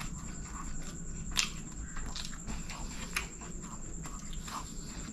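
Close-miked eating sounds of a man eating fried rice with his hand: chewing and wet mouth noises, with two sharp clicks about a second and a half in and again near three seconds.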